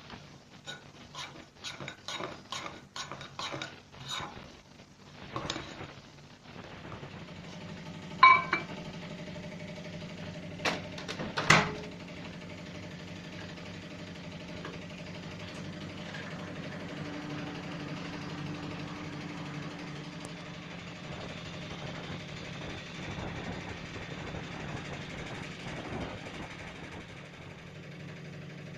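A spoon clinking against a mug as mug cake batter is stirred, about two taps a second. Then a microwave oven starts with a short beep and a clunk, and runs with a steady low hum.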